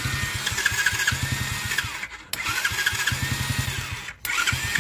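49cc Chinese kids' ATV engine turning over on its electric starter and starting up, now that the new starter solenoid engages. It makes a fast pulsing with a gliding whine above it. The sound breaks off abruptly about two seconds in and again near the end, then resumes.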